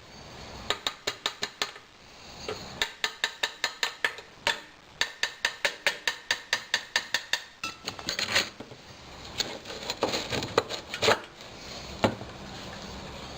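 Ratchet wrench clicking in quick runs of about seven clicks a second while bolts on a small engine are backed out, followed by a few louder, irregular metal clanks and knocks later on, the loudest near the end.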